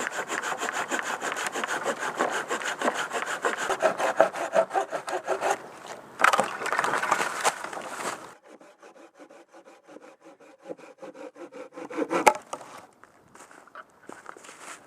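Bahco hand saw cutting through wood with fast back-and-forth strokes. The strokes grow quieter after about eight seconds and end with one loud stroke a little after twelve seconds.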